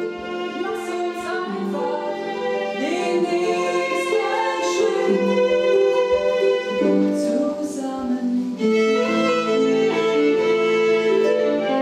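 Violin and harp playing an instrumental passage together: the violin bows a melody with some sliding notes over plucked harp notes.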